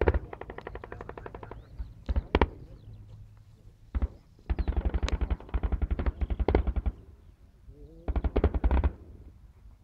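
Automatic gunfire in bursts: a rapid burst at the start, two or three single shots, then a long burst a little past the middle and a shorter burst near the end.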